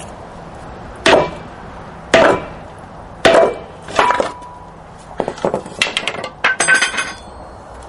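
Hammer blows on a block of wood held against a rusted wheel hub assembly, tapping it to drive it out of the brake rotor: four heavy knocks about a second apart, then lighter, quicker knocks and clatter with a short metallic ring near the end.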